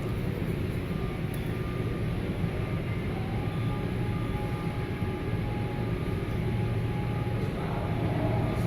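Steady low hum and background noise of a large store, like ventilation running, with a few faint thin tones in the background.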